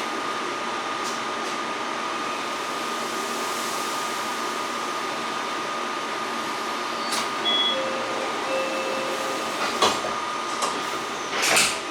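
Steady hum inside a standing 8000 series express train car, with a thin high tone held throughout. Faint brief tones come and go past the middle, and two sharp knocks near the end, the second the louder.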